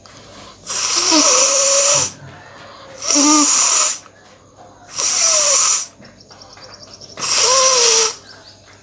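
A woman blowing her nose hard, four forceful blows of about a second each, spaced roughly two seconds apart.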